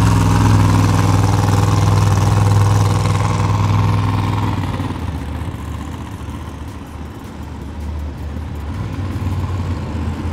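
Monster truck engine running steadily, loud at first, easing off about halfway through and building again near the end.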